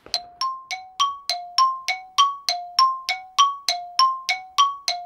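A ticking chime sound effect: short bell-like notes struck about three times a second, alternating between a lower and a higher note like a tick-tock, each ringing briefly.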